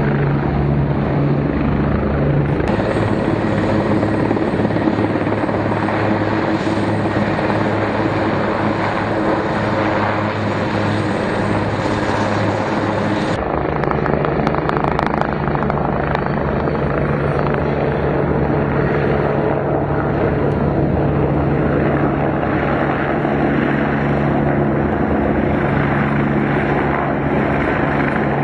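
Steady rotor and turbine noise of South African Air Force Denel Rooivalk and Atlas Oryx helicopters flying in formation, with a constant low hum under the rushing sound. The sound changes character abruptly about 13 seconds in.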